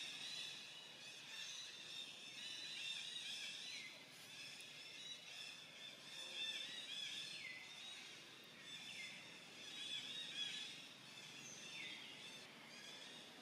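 Faint outdoor ambience of many birds chirping at once, high calls overlapping, with some calls sweeping down in pitch every couple of seconds.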